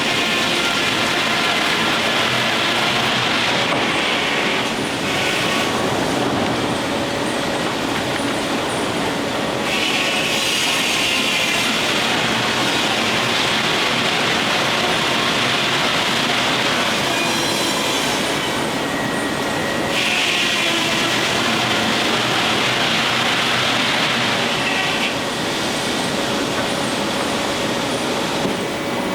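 Steam-powered sawmill running: a steady mechanical din with a louder high rasp coming and going in long stretches, lasting several seconds to about ten.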